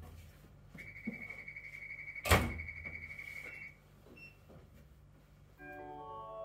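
Cable car station's departure buzzer sounding a steady, pulsing high tone for about three seconds, with the sliding doors closing in a heavy thud about two seconds in. Near the end, an electronic chime of several stepped notes sounds, the signal for an onboard announcement.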